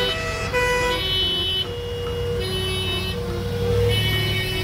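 Background instrumental music, a melody of held notes stepping between pitches, over a steady low rumbling noise.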